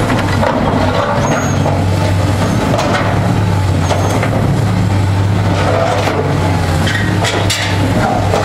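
Hydraulic excavator's diesel engine running steadily as it swings and works a hydraulic demolition shear, with a few sharp knocks and scrapes of debris, the loudest about seven seconds in.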